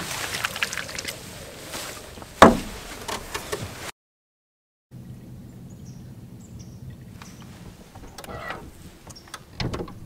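Water noise and handling sounds as a small crappie is dealt with over the side of an aluminum johnboat, with one loud sharp knock about two and a half seconds in. After a short gap, a steady low hum with scattered light clicks.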